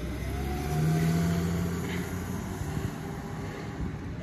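Ambulance driving past close by, its engine and tyres loudest about a second in. Under it a faint siren wail rises and then slowly falls.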